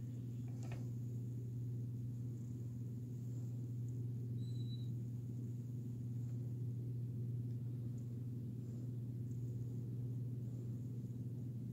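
Steady low hum with no speech, holding the same pitch throughout; a faint, short high tone sounds about four and a half seconds in.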